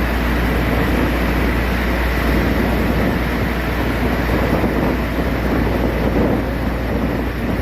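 A ferry's engine running with a steady low drone, under a constant rush of wind on the microphone.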